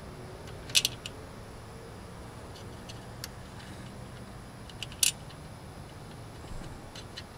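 Short metallic clinks of bolt hardware and a wrench against a van ladder rack while a tie-down is bolted on. There are two louder clusters of clicks, about a second in and about five seconds in, with a few lighter ticks between and near the end.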